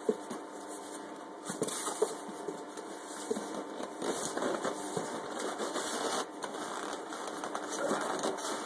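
Cardboard box and packing material being handled and rustled, with scattered crackles and light knocks over a steady background hum.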